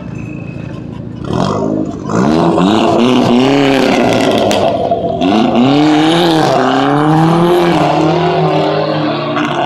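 A car engine revving hard, its pitch rising and falling again and again as the black coupe spins donuts on the road. It starts quieter and jumps to full revs about two seconds in.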